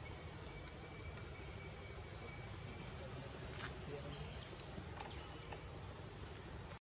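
Steady, high-pitched insect chorus, with a low rumble underneath and a few faint clicks. The sound cuts off abruptly at the very end.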